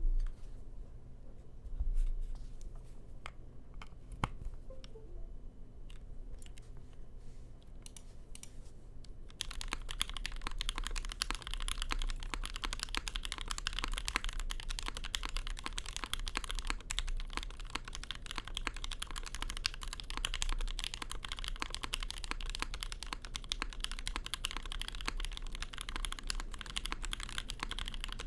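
A mechanical keyboard: for the first nine seconds or so only a few scattered key clicks and a low thump. Then, about nine and a half seconds in, steady fast typing begins on a Key65 built with JWK SoHo switches on an aluminium full plate.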